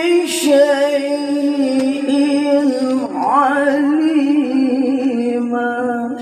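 Male qori reciting the Qur'an in a high voice, holding long melismatic notes with wavering ornaments, with a brief break and a rising slide about three seconds in.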